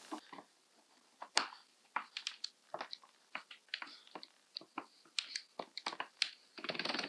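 Irregular small clicks and knocks, about two dozen, from a door lever handle and its Phillips screws being tightened and the handle set to its angle, with a denser rattle near the end.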